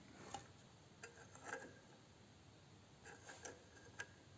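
Near silence with about half a dozen faint, scattered clicks and light taps, the clearest a little after one second and at four seconds.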